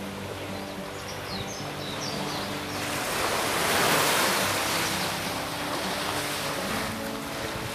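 Small surf washing onto a sandy beach, swelling to its loudest about three to five seconds in, over soft background music with long held notes.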